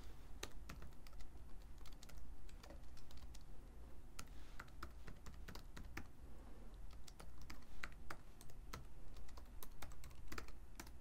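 Typing on a computer keyboard: a run of uneven, quick keystrokes, as a command is typed into a terminal.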